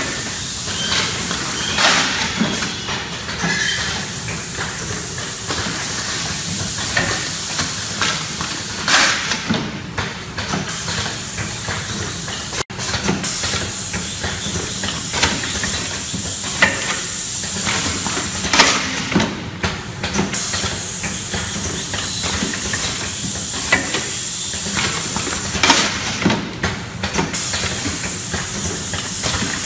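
Pneumatic automatic bag-filling machine running: a steady hiss of compressed air, broken every several seconds by short lulls with clacks and knocks as the machine cycles through a fill.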